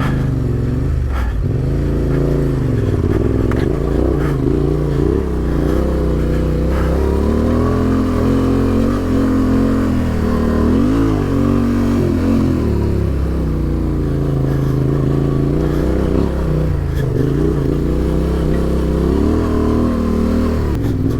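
Adventure motorcycle engine working at low speed over a rough off-road track, its revs rising and falling with short bursts of throttle.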